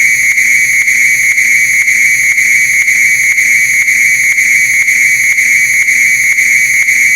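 Fire alarm sounder giving one continuous, loud, high-pitched steady tone.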